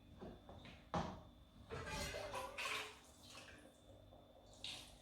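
Cooking pot and utensil handling: a sharp knock about a second in, then about a second of clattering and scraping.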